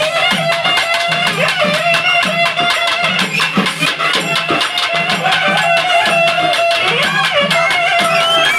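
Festival dance music: a wavering, sliding melody over a steady drumbeat of about two beats a second.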